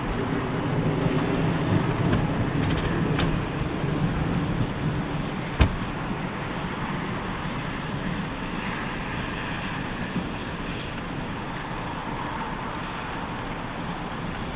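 Rain falling on a vehicle, heard from inside it, with a low rumble through the first six seconds and one sharp click about five and a half seconds in.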